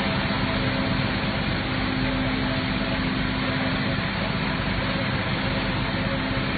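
Water tanker truck's engine running steadily while it sprays a high-pressure jet of water, with an even hiss over the hum.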